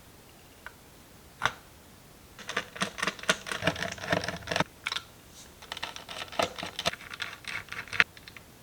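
Small hardware parts being handled during a small-form-factor PC build: a few single sharp clicks, then two stretches of rapid clicking and rattling, ending on one sharp click.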